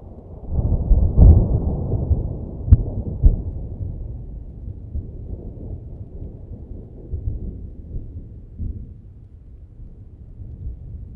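A thunderclap: a deep rumble swells about half a second in and breaks into three sharp cracks over the next few seconds. It then fades to a long, low rolling rumble that keeps going.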